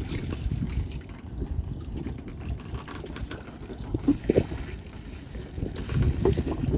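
Water trickling and splashing, with a few knocks.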